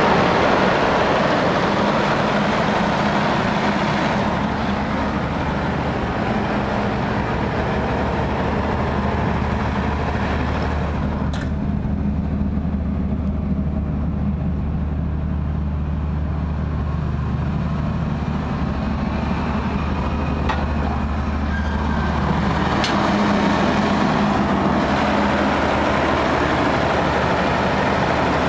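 Containerised AIFO GEC 500/2 500 kVA diesel generator set, its Perkins diesel engine running steadily with a deep, even drone. From about 11 to 23 seconds it turns duller, heard from outside the container, then becomes fuller again.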